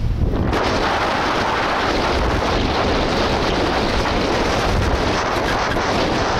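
Strong wind rushing over the camera microphone in a loud, steady roar, mixed with surf breaking on the rocks below; it comes in suddenly about half a second in.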